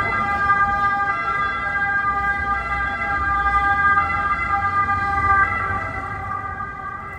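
Two-tone emergency vehicle siren alternating between a high and a low note about every second and a half, over a low traffic rumble, fading away near the end.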